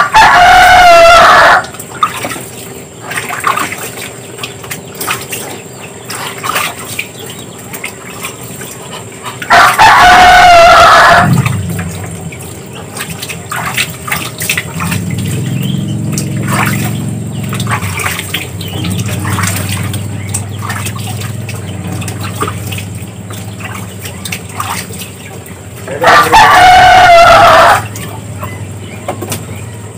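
A rooster crowing three times: at the start, about ten seconds in, and near the end, each crow loud and about a second and a half long. Between the crows, water splashes in a basin as a Muscovy duck dips and shakes its head in it.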